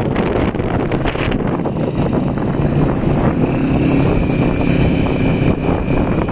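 Storm wind blowing hard and buffeting the microphone, with a low steady hum underneath; about three seconds in a high steady whistle joins it.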